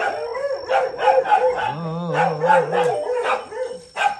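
Several kennel dogs barking, their barks overlapping. A wavering howl rises and falls about two seconds in.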